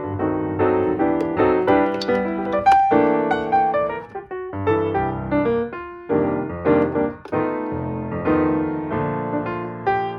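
Background piano music, an electric-piano-like melody over chords with notes struck in quick succession.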